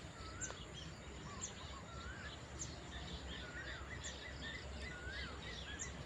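Birds calling outdoors: a short wavy whistled note repeated about once a second, with thin high chirps between, over a steady low background hiss.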